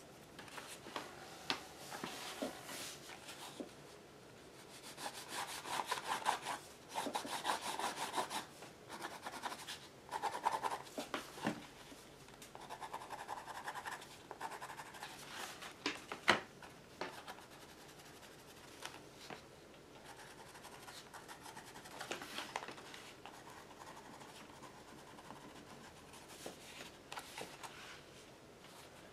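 A Stabilo All water-soluble charcoal pencil scratching and rubbing across a paper journal page in uneven bursts of strokes with short pauses. A single sharp tap about halfway through is the loudest sound.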